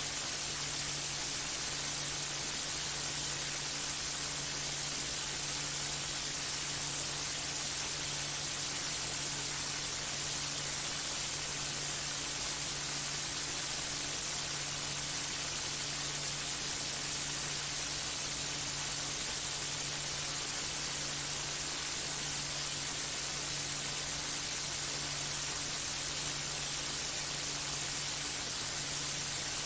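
Steady static hiss with a low electrical hum underneath, unchanging throughout; no voices or other sounds stand out.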